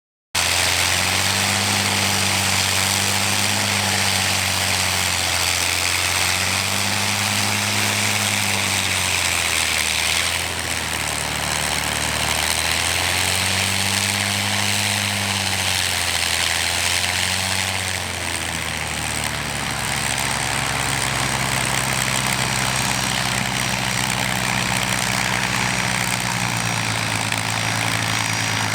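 Twin-engine XP-82 Twin Mustang's two V-12 piston engines running at low power, the drone slowly wavering and swelling as the two engines drift in and out of step, then settling steadier about two-thirds of the way through.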